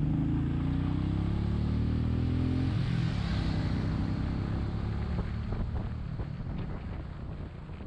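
A Royal Enfield Meteor 350's single-cylinder engine running under way, heard from the moving bike. About three seconds in, the engine note drops away, leaving wind and road noise with a few light knocks, tapering off near the end.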